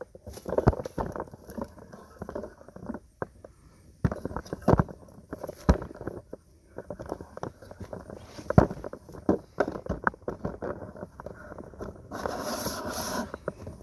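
Irregular knocks and clanks of a workpiece being handled and clamped, with a short noisy burst near the end.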